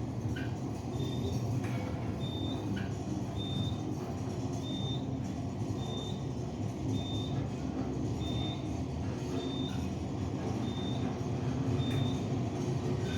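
Building fire alarm going off: a short high beep repeating about once every 1.2 seconds, starting about a second in, over a steady low rumble.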